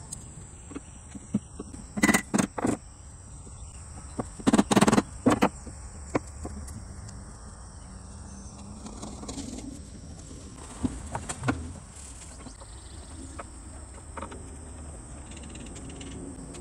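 Wood chisel working a pine loom frame, trimming away waste wood and dried glue: sharp knocks in two clusters about two and five seconds in, and a few fainter taps around eleven seconds. A steady high insect buzz runs behind.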